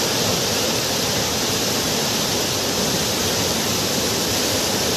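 Fast floodwater of a swollen river rushing and churning past a bridge pier, a steady, even rush of noise.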